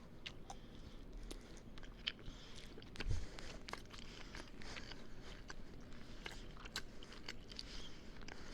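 Close-miked chewing and biting into a burrito: many small wet clicks and crunches, with one louder thump about three seconds in.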